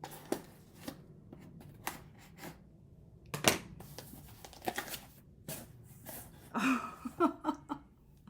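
A cardboard mailing box being opened by hand: packing tape and cardboard ripping and scraping in short irregular tears, the loudest rip about three and a half seconds in, with a few short squeaky sounds near the end.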